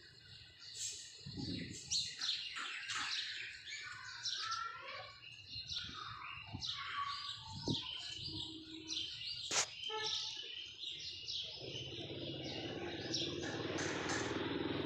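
Small birds chirping and twittering busily in many short, high calls, with one sharp click a little past halfway. From about two-thirds of the way through, a steady motor rumble grows louder under the chirping.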